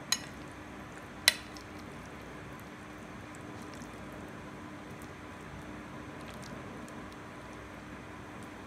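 A metal spoon clinks sharply twice against a glass bowl, then scoops quietly through moist shredded chicken-and-mayonnaise filling, over a steady low hum.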